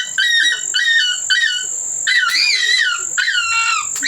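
A dog whining and whimpering in a quick run of short, high-pitched cries that bend up and down in pitch, over a steady high tone.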